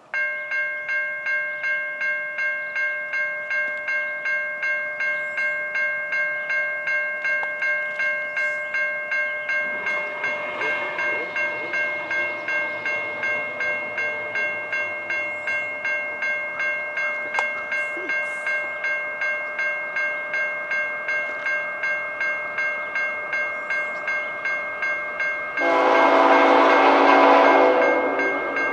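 Railway level-crossing bell ringing steadily at about two strokes a second. Near the end the lead locomotive, a CN GE ET44AC, sounds one long horn blast of about two seconds, much louder than the bell.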